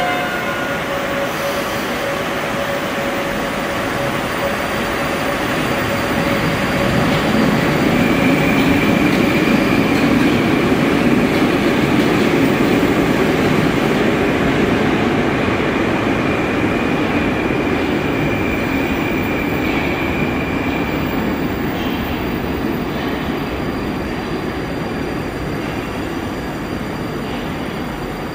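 Moskva-2020 metro trains moving through an underground station: one pulling out and another arriving, their wheels rumbling on the track. A steady high whine runs for about ten seconds in the middle.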